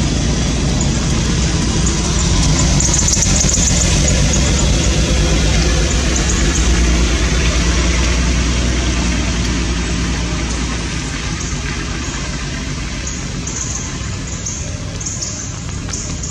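Steady low hum of an engine running, easing a little in level about ten seconds in.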